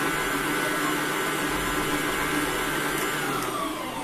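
Sokany planetary stand mixer running steadily, its motor whine and whisk churning cream. About three seconds in, the whine falls in pitch and gets quieter as the speed dial is turned back.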